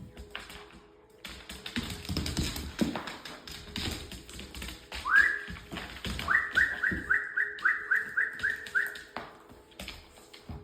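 A whistle: one rising note, then a quick run of about nine short rising pips, about three a second, over background music with tapping.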